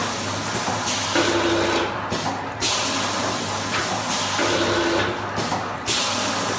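Automatic sachet packing machine running, with a steady low hum and a loud hiss that cuts out briefly and comes back in a cycle repeating about every three seconds, plus a short steady tone once per cycle.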